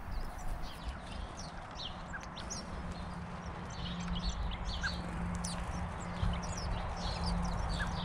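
Garden birds giving short, scattered chirps in the background, with light tapping as a bullfinch pecks at seed on a wooden bird table.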